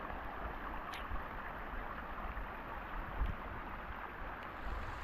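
Outdoor ambience: a steady rushing hiss, with wind buffeting the microphone in low, uneven gusts.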